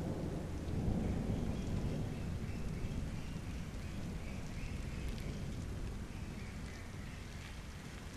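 Rain falling steadily, with a low rumble of distant thunder that swells about a second in and slowly dies away.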